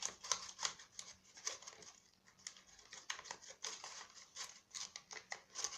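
Quiet paper crinkling and rustling with many irregular light scrapes and taps, as a paper banknote is handled and pushed into the slot of a homemade vending machine.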